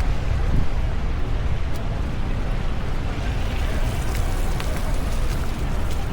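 Steady city street noise dominated by a heavy low rumble, with a few faint clicks scattered through it.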